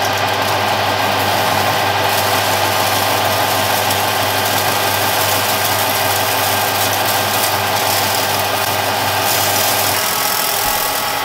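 Harrison M300 lathe running under heavy load as an indexable turning tool takes a 10 mm deep cut in 6061 aluminium bar: a steady, loud mechanical hum of motor and gearing over the hiss of the cut.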